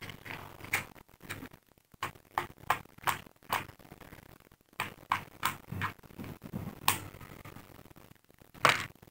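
Safety matches struck again and again against the side of a matchbox, about a dozen short scrapes, until one catches and burns. A louder, slightly longer scrape comes near the end.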